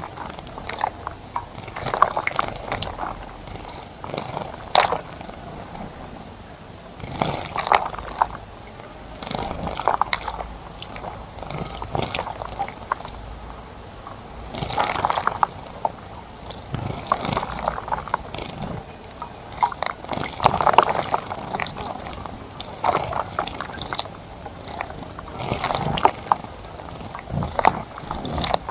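Birds bathing in a bird bath: short bursts of splashing water, one every one to three seconds.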